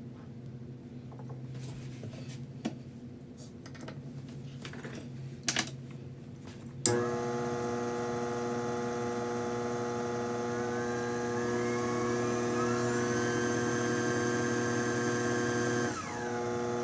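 A few clicks and knocks of handling over a faint hum. About seven seconds in, the cue lathe's electric motor switches on and runs with a steady, loud whine, some of its higher tones rising partway through. Near the end it drops and winds down as it is switched off.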